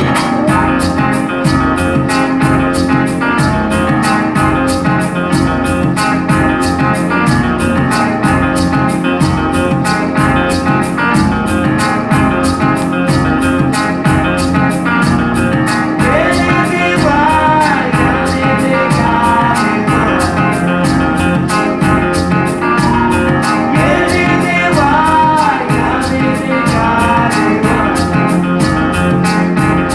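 Recorded music played at high level through Viva Audio multi-horn loudspeakers with separate bass units, heard in the room: a song with a steady beat and guitar, a singing voice coming in about halfway through.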